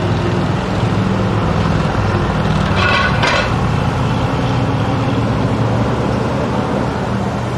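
Street traffic: vehicle engines running with a steady low hum, and a brief higher-pitched sound about three seconds in.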